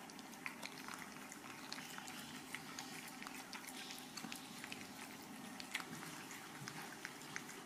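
Cats licking and chewing wet cat food from bowls: many small, wet clicks and smacks over a faint, steady hiss.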